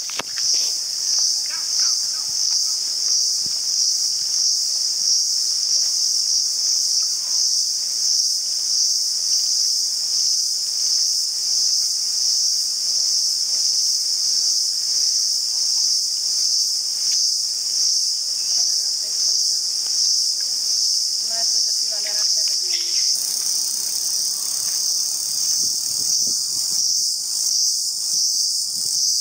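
A loud, steady, high-pitched chorus of forest insects, droning with a slight pulse. A higher hiss joins about three-quarters of the way through.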